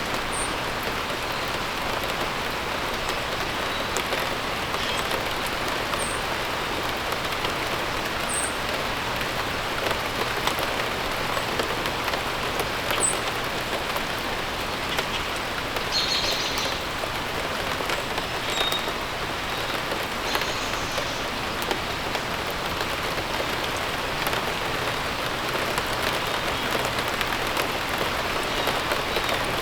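Steady rain falling on surfaces, an even hiss of drops, with a few brief high bird chirps here and there and a clearer bird call about halfway through.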